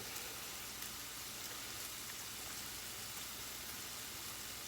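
Chicken tenders sizzling in a pan: a steady, even hiss.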